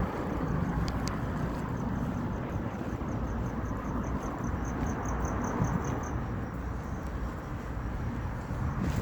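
Steady low outdoor rumble with wind on the microphone. A faint, high, rhythmic chirping, about five pulses a second, grows a little louder and stops about two-thirds of the way through.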